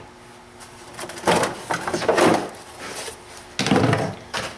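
Plastic air intake snorkel being pulled free and handled in the engine bay: two spells of scraping and knocking, one about a second in and one near the end.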